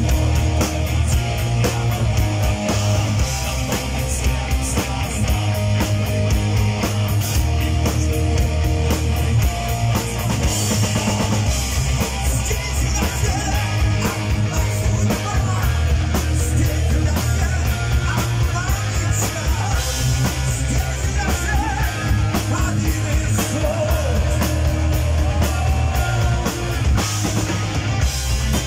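Live heavy metal band playing: distorted electric guitars, bass and a drum kit pounding a steady beat, with a male voice singing over it from about ten seconds in.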